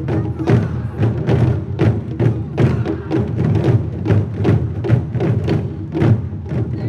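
Japanese taiko drums played by an ensemble: a steady run of deep drum strikes, about two to three strong beats a second with lighter strokes between, mixed with sharp clicks.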